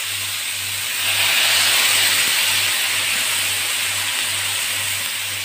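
Steady sizzling hiss of a stir-fry of young corn, anchovies and carrot frying in a wok. It grows a little louder about a second in.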